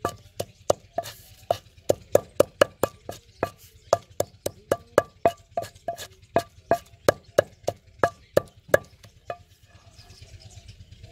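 Wooden pestle pounding chillies, mint and salt in a stone mortar: a steady knock with a slight ring about three times a second, stopping about nine seconds in.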